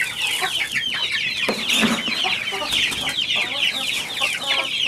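A flock of hungry chicks peeping continuously in rapid, short, falling calls. Dry feed pellets pour and rattle from a plastic scoop into a metal bowl of rice.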